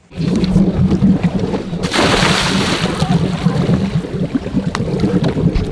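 Nautique G23 wake boat's inboard engine running steadily under way, its low drone mixed with water rushing past the hull, with a brief louder rush about two seconds in.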